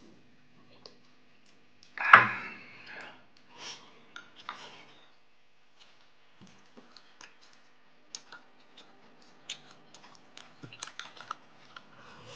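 Table and eating sounds during a meal: scattered small clicks of chopsticks against bowls and light chewing. One louder sudden sound comes about two seconds in.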